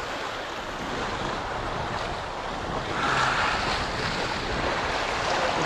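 Ocean surf washing steadily, with wind noise on the microphone; the wash grows louder as a wave comes in about three seconds in.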